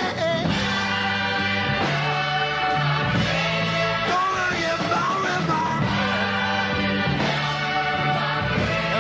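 Rock song with a singer over a bass line that holds each note for about a second.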